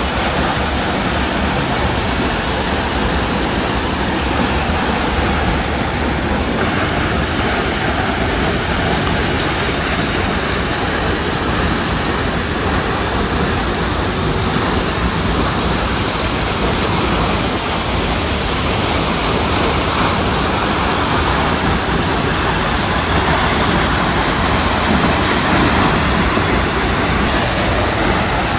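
Vernal Fall, a large waterfall, pouring onto rocks close by: a loud, steady rush of falling water and spray.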